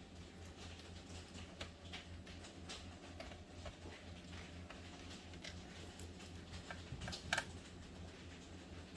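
Faint, irregular clicks and ticks of a screwdriver working screws out of a laptop's plastic bottom cover, with a sharper click about seven seconds in, over a steady low hum.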